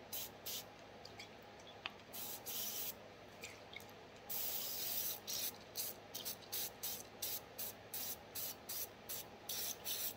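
Small cleaning brush scrubbing the parts of a Glock pistol wet with CLP: short scratchy, hissing strokes, a few spaced ones at first, a longer one about halfway, then quick back-and-forth strokes about two or three a second.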